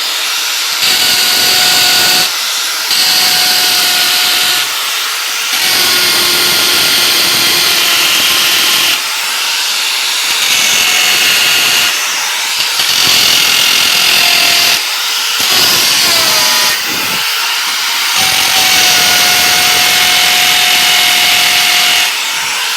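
Hammer drill running in hammer mode with no bit, held against concrete formwork to vibrate the fresh concrete inside. It runs in stretches of a few seconds, easing off briefly between them.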